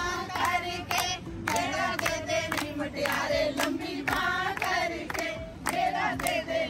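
A group of women singing together while clapping their hands in a steady rhythm, about two claps a second.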